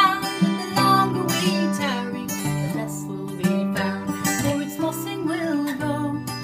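A woman singing a folk song, accompanying herself on a strummed acoustic guitar.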